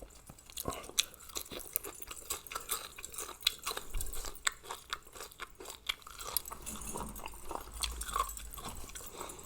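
A person chewing a mouthful of Thai mixed-seafood pounded salad close to the microphone: irregular wet clicks and crunches of eating.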